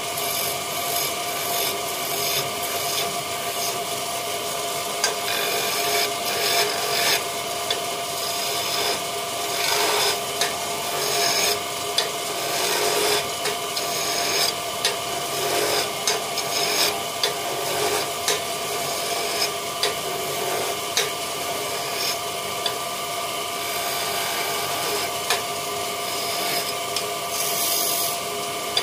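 Hand-held chisel scraping and cutting a small wooden spindle turning on a wood lathe: a continuous rasping scrape with frequent short, irregular sharper strokes over the lathe's steady whine.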